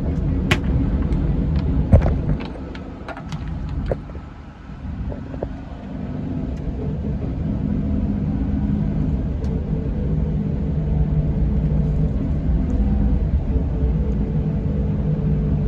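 Scania K410 diesel engine of an Irizar i5 coach running with a steady low drone. A sharp knock about two seconds in and a few clicks come early, the engine sound drops for a few seconds, then it runs steadily again.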